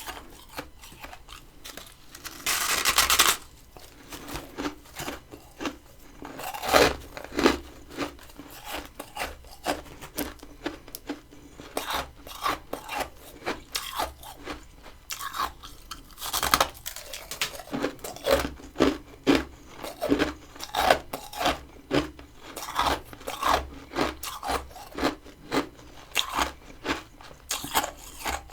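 Crunchy freezer frost being bitten and chewed close to the microphone: a steady run of crisp crunches, about one or two a second. A longer harsh crunch comes about three seconds in, and there are louder bites around seven and sixteen seconds in.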